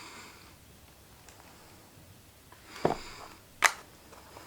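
A person sniffing a skincare product, short airy inhalations at the start and about three seconds in, with a sharp click a moment later.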